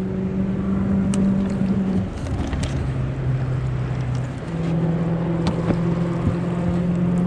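Mercury outboard motor running under way, its engine note dropping about two seconds in and rising again a couple of seconds later as the throttle is eased off and opened up.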